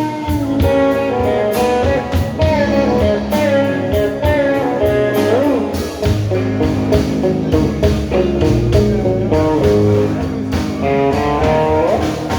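A blues band playing an instrumental break: electric guitar lead with string bends over bass and drums.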